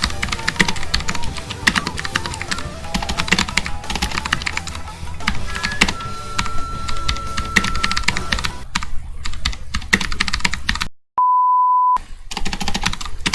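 Rapid typing on a Rapoo V500Pro mechanical keyboard with clicky blue switches, a fast run of key clicks over background music. About 11 seconds in, the sound cuts out for a single steady beep lasting about a second, then the typing resumes.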